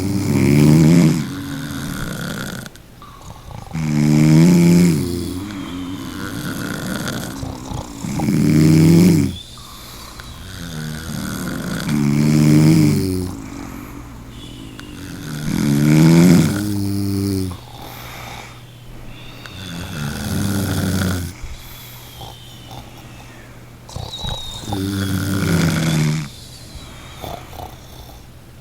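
A person snoring, a loud rumbling snore about every four seconds, seven in all, with softer breathing between them.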